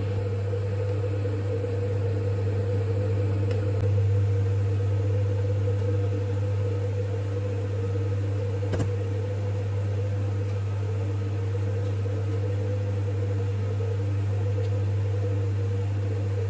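Steady electric hum of a kitchen fan running at constant speed, with one light click about nine seconds in.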